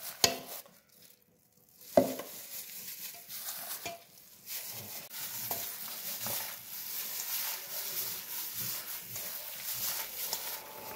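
Gloved hand mixing salted cabbage and vegetables into kimchi paste in a stainless steel bowl: a steady wet rustling from about two seconds in. A sharp knock comes about two seconds in, after a short quiet stretch.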